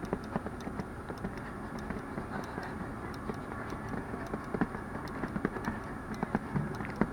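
Quick, light footfalls of a man running on the spot, as a string of small irregular taps over a steady background hiss, with a few stronger knocks in the second half.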